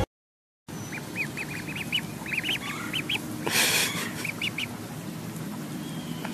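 Ducklings peeping in quick runs of short, high chirps, with a brief burst of noise about halfway through.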